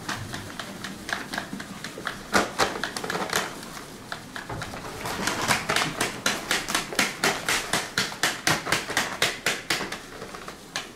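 Wooden-rimmed hand sieve being shaken to sift wheat flour for bread dough: a rhythmic rattling and tapping, irregular at first, settling about halfway through into a steady beat of about three or four strokes a second.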